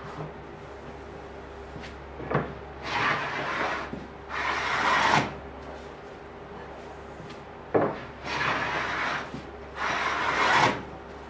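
Hand plane taking shavings from a solid-wood desktop: four rasping strokes of about a second each in two pairs, each pair preceded by a sharp wooden knock.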